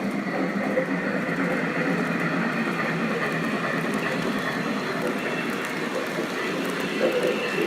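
Lionel O-gauge model train running, a steady rolling rumble that holds an even level throughout.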